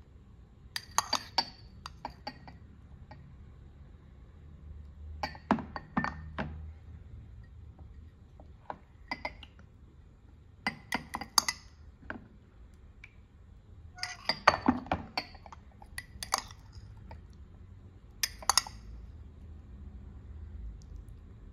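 Metal spoon clinking against the white cups of a natto maker as sticky fermented soybeans are scooped and stirred, in short clusters of sharp clinks every few seconds.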